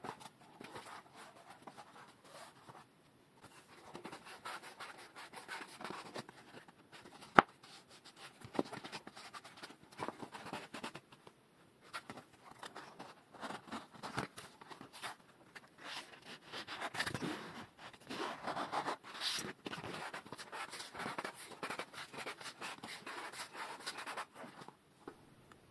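Hands handling and flexing a knobby rubber bicycle tyre, the rubber rubbing and scratching under the fingers with many small ticks, and one sharp click about seven seconds in.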